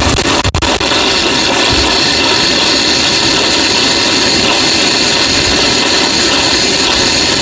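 Garden-hose spray gun jetting water against a motorcycle's engine and frame, a steady loud hiss and spatter that settles in about half a second in.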